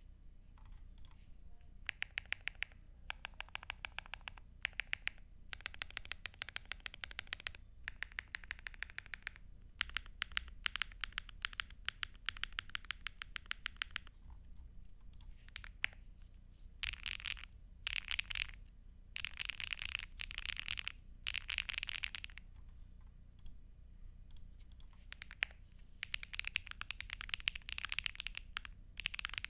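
Crush80 mechanical keyboard with full foam and HMX Macchiato switches being typed on in bursts of rapid keystrokes separated by brief pauses. In a few runs around the middle, the strokes come so fast that they blur into a continuous clatter.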